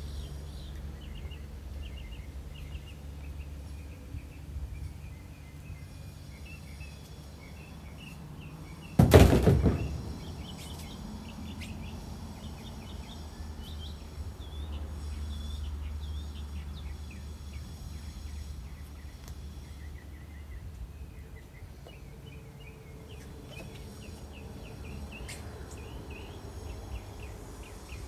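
Small birds chirping and calling over a steady low outdoor rumble. About nine seconds in comes one loud thump.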